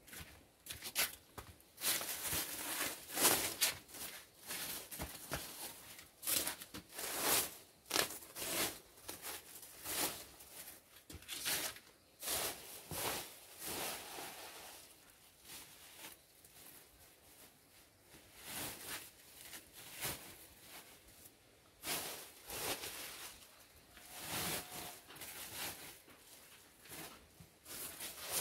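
Plastic bags and white plastic packaging crinkling and rustling in irregular handfuls as they are gathered up and stuffed into a woven plastic sack, busier in the first half and sparser in the middle.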